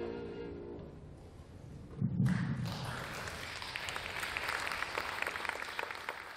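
The last sustained note of a musical piece dies away, then an audience breaks into applause about two seconds in, opening with a low thump; the applause fades near the end.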